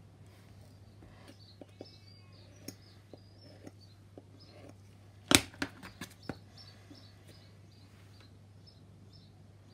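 Barn swallows chattering and twittering in the background, with a steady low hum underneath. About five seconds in there is a sharp knock, then a few lighter clicks, from the plastic model and tweezers being handled on a cutting mat.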